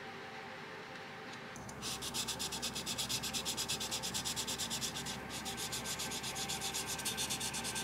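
Sandpaper rubbed back and forth over a plastic model car body in quick, even strokes, starting about a second and a half in with a brief pause midway: smoothing out imperfections before primer.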